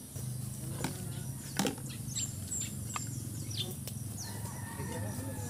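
Chickens clucking and small birds chirping, with a few sharp knocks, the loudest about one and a half seconds in.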